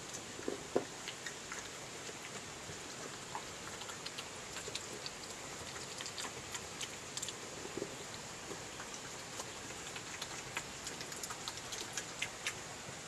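European badger chewing chips at close range: irregular wet clicks and smacks over a steady hiss.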